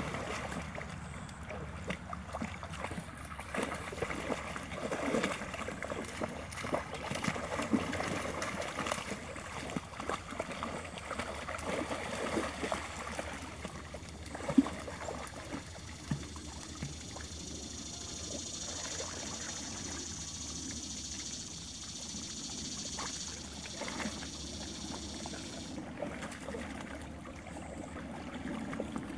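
Labrador and puppies paddling through shallow pond water: irregular splashing and sloshing, busiest in the first half, with one sharper splash about halfway through. A steady high buzz runs through the middle stretch and stops a few seconds before the end.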